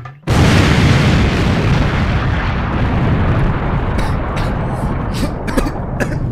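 A loud firecracker blast about a quarter second in, followed by a long rumbling hiss that slowly fades, with scattered sharp cracks over the last two seconds.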